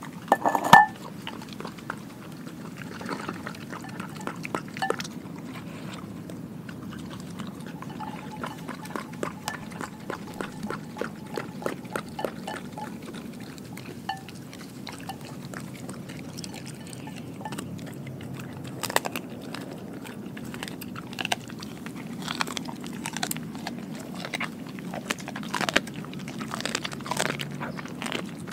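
A dog eating raw meat and bones from a glass bowl, close up: wet chewing and licking with many sharp clicks and crunches. A loud knock about a second in, as the glass bowl goes down onto the concrete.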